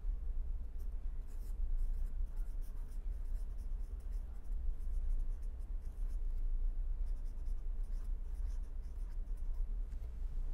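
A pen writing on paper: a run of short scratchy strokes, over a steady low hum.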